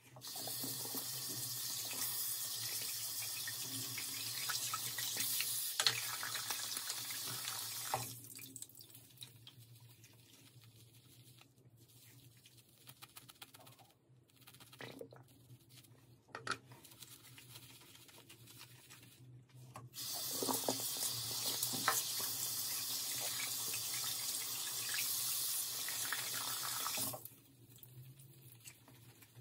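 Tap water running into a sink, twice: a steady stream for about eight seconds at the start and again for about seven seconds from about 20 seconds in. Between the two, soft wet squishes and clicks of a makeup brush being worked against a wet Dalan soap bar.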